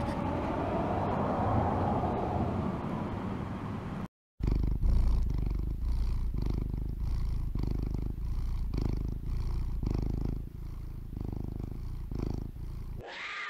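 Domestic cat purring loudly and close up, the purr pulsing with each breath about every half second or so. It follows a few seconds of steady outdoor noise and ends with a short falling tone.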